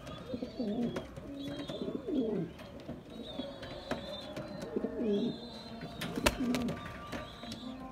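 Spanish Pouter pigeons cooing in several low, wavering bouts, with fainter higher bird calls behind them. A single sharp knock about six seconds in is the loudest sound.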